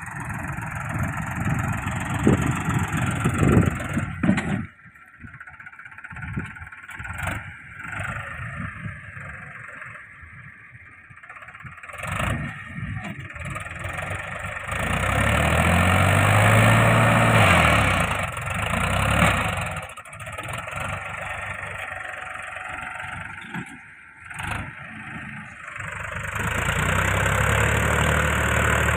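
Diesel tractor engine labouring under heavy load as it tries to drag a loaded trailer out of soft sand. Its note rises and falls with the throttle, loudest in a revving surge about halfway through and again near the end.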